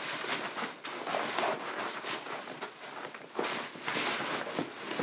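Fabric and backpack nylon rustling in irregular bursts as clothes are stuffed into a hiking backpack and pressed down.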